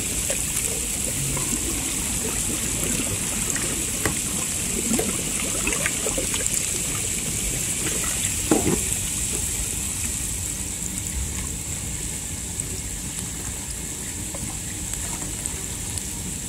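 Pool water trickling and lapping with soft, scattered splashes of a kayak paddle dipping, the most noticeable about eight and a half seconds in, over a steady high hiss.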